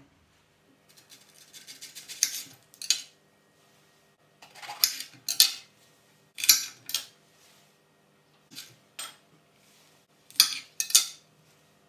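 Knife and halved fruit and vegetables clattering and knocking on a glass chopping board: a series of short, sharp clinks and knocks in small clusters every second or two, over a faint steady hum.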